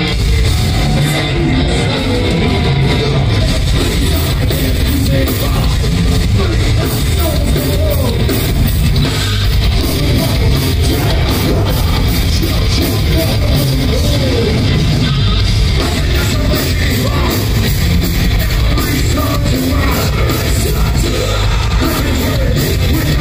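A live heavy rock band playing loud, with yelled and sung vocals over guitar and a heavy low end, heard from within the crowd.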